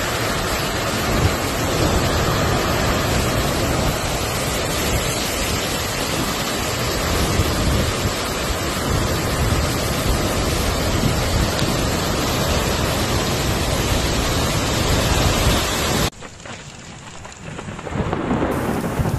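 Heavy typhoon rain and wind as a loud, steady rushing noise. It cuts off abruptly about sixteen seconds in; after a quieter stretch, rain noise returns near the end.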